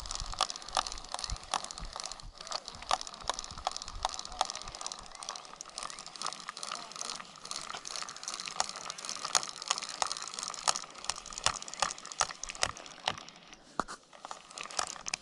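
Push-button spincast fishing reel being cranked: a dense run of sharp, irregular clicks over a faint steady whirr, with rustle from the hands on the reel.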